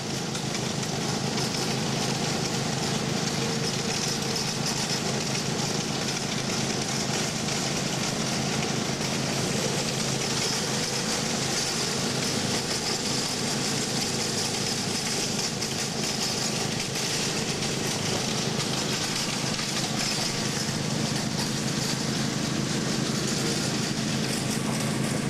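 Riding lawn mower engines running steadily at racing speed, a constant drone with a steady hiss over it.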